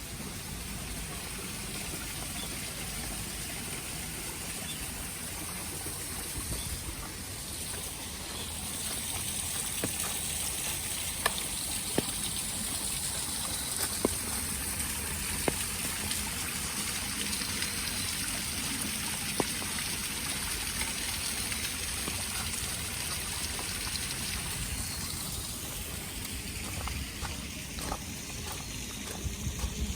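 Water trickling and running steadily, with a few sharp ticks through the middle. The rush grows brighter from about eight seconds in and eases again near the end.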